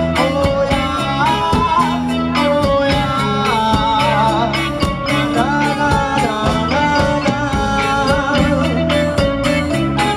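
Live rock band playing loud: electric guitars, bass, keyboards and drums under a sung melody line.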